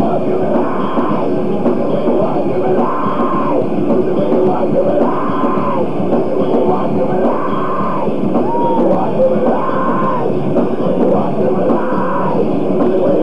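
Live rock band playing loud: electric guitars, bass and drums, with a riff that repeats about once a second.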